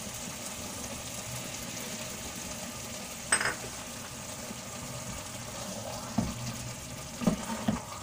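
Thick turnip and chicken curry simmering in a wok with a steady sizzle. A sharp, ringing clink comes about three seconds in, and near the end a spatula knocks against the pan several times as the curry is stirred.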